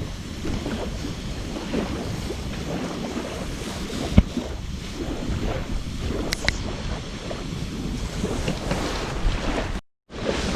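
Wood campfire burning with a steady crackle and a few sharp pops, the loudest about four seconds in, under wind rumble on the microphone. The sound drops out completely for a moment near the end.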